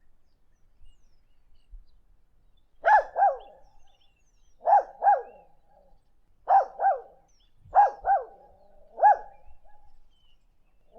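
Puppy barking in quick double barks, four pairs and then a single bark, starting about three seconds in and coming every second and a half or so.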